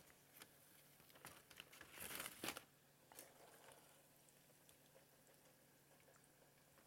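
Faint rustle of a paper bag as fried tortilla strips are dropped into it from metal tongs, loudest for about half a second some two seconds in, with a few light clicks.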